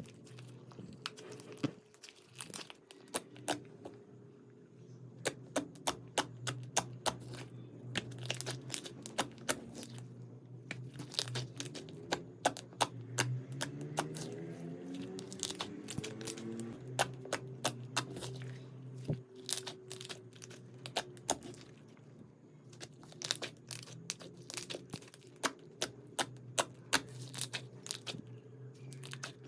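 Slime being squeezed and stretched by hand, giving irregular sharp crackles and pops over a steady low hum.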